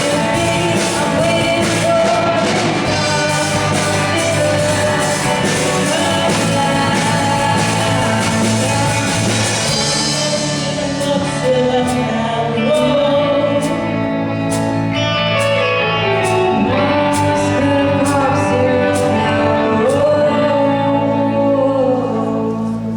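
A live band plays with a lead singer. About halfway through, the dense full-band sound drops to a sparser passage of held singing over regular cymbal-like hits.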